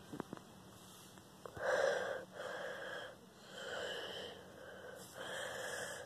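Close, heavy breathing into the microphone: four noisy breaths in and out, each about a second long, beginning a little over a second in.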